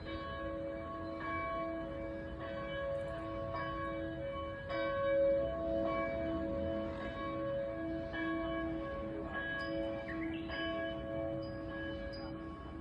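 Church bells ringing for noon, struck about once a second, each stroke ringing on into the next.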